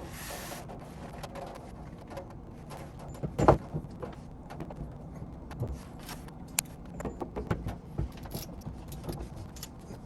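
Tools and metal fuel-system parts clinking and knocking as they are handled and refitted under a car, with one louder knock about three and a half seconds in. A brief hiss at the very start.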